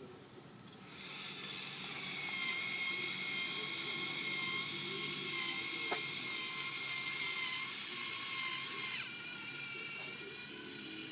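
Battery-powered urethane caulking gun running, a steady high motor whine as it pushes out the windshield urethane bead. About nine seconds in the whine drops to a lower, quieter pitch.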